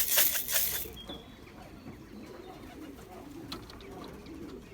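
Racing pigeons cooing in the loft, a low wavering murmur. A rapid rattle stops about a second in.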